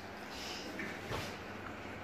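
Faint rustling and handling noise of people moving, with a soft thump a little past a second in.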